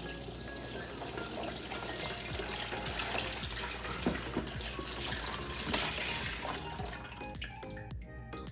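Water pouring into a foot-soak basin, the splashing building up over several seconds and easing off near the end.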